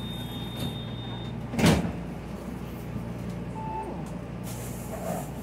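Inside a city transit bus: the steady low hum of the bus, with a single loud thump about a second and a half in, a short beep a little later, and a hiss near the end.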